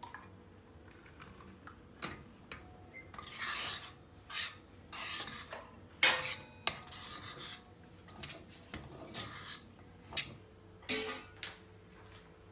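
A utensil stirring tapioca starch into liquid in a stainless steel pot, scraping against the pot's sides and bottom, with sharp clanks on the metal about three times.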